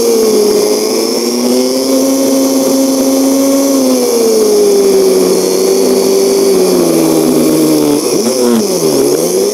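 1973 BMW R75/5's air-cooled 750 cc flat-twin engine running under way, with wind rush. The engine note rises and sags slowly with the throttle, then the revs drop sharply and climb back near the end.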